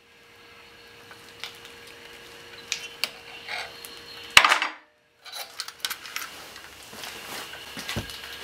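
Metal clinks and knocks as the steel hook of a luggage spring scale is handled against a steel post, with one loud clank about four and a half seconds in, over a faint steady hum.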